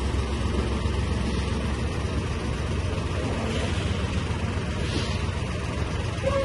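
Heavy cargo truck engine idling, a steady low rumble.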